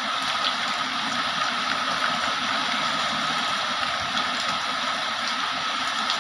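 Heavy rain falling steadily, a constant wash of noise with faint scattered drop ticks.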